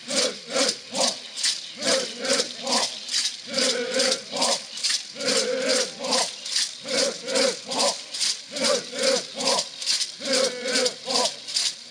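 Many gourd rattles shaken together in a steady beat, about three shakes a second, with a group of men chanting along in low voices.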